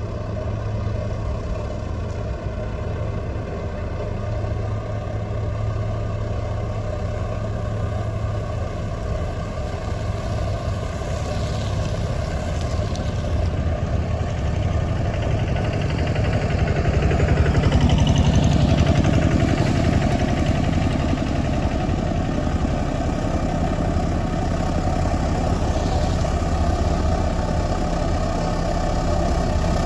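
Road roller's diesel engine running steadily, swelling louder for a couple of seconds about halfway through, with faint higher gliding sounds now and then.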